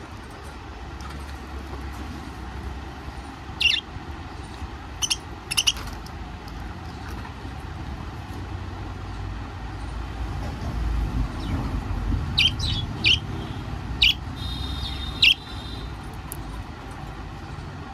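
Budgerigars chirping: short sharp calls every few seconds, coming more often in the last third with a brief warble, over a steady low background rumble.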